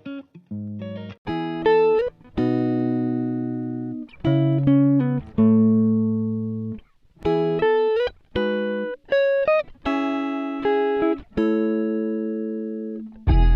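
Music of plucked guitar notes and chords, each struck and left to ring and fade, following one another in an unhurried melody.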